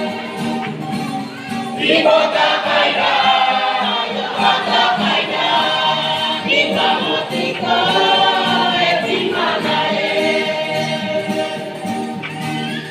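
Church youth choir singing a gospel hymn in the Mee language, several voices together.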